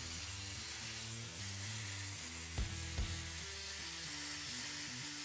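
Daiden Cut 100 plasma cutter's arc hissing steadily as it cuts through 10 mm aluminium plate, with its air supplied by the machine's built-in compressor. Background music with a beat plays over it.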